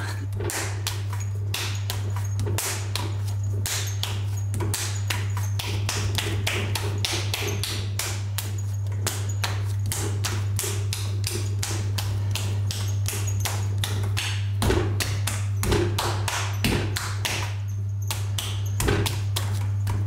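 A lump of clay pressed and rolled by hand against a wooden board, giving a fast run of taps, about three a second, over a steady low hum.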